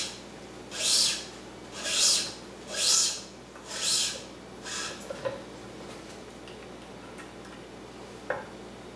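Badminton string being pulled through a racket's main strings in a run of long pulls, about one a second: each a rasping swish of string rubbing across string. The pulls fade out about five seconds in, and a sharp click comes near the end.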